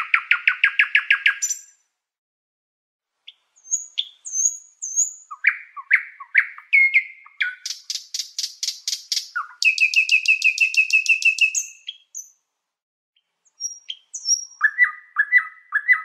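Songbird singing: fast trills of rapidly repeated notes alternating with short sweeping chirps and whistles, broken by two brief pauses.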